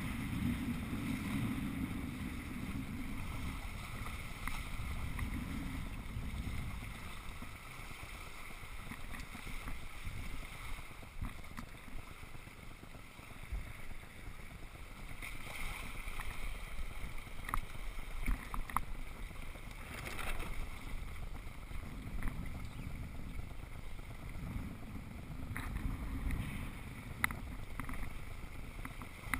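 Wind buffeting the microphone and water rushing past aboard a Hobie Cat 21 catamaran under sail, swelling and easing in gusts, with a few short clicks in the second half.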